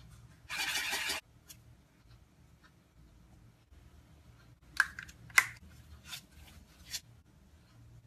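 Hands preparing dough ingredients on a plate. A brief rushing noise about half a second in, then a handful of sharp clicks and taps from a small measuring spoon against the plate.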